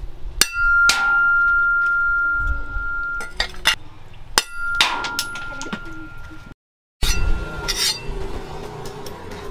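A leaf-spring steel cleaver chopping through steel nails on a small anvil: sharp metal strikes, the first two each followed by a clear ringing tone that fades over a second or two. After a brief dead gap, more strikes near the end.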